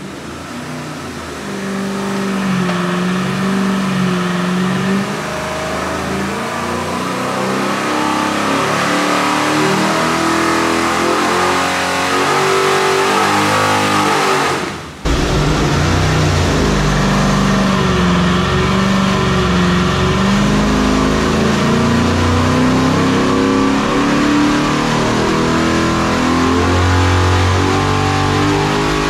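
540 cubic-inch big-block Chevy V8 on an engine dyno, making a wide-open-throttle pull, its note climbing as the revs rise toward 6,000 rpm. About halfway through there is a break, and the engine comes back louder and fuller in the low end, heard close up from inside the dyno cell.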